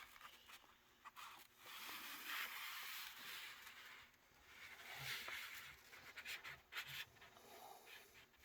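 Faint rustling of paper as a stapled instruction booklet is handled and its pages turned, in two longer stretches with a few small ticks between.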